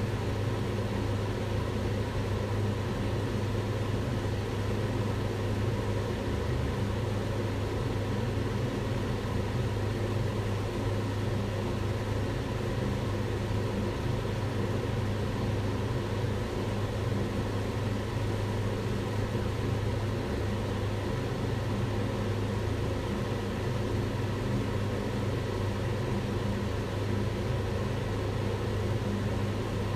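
Kitchen range hood fan running steadily: an even whooshing rush of air over a low motor hum, with no change.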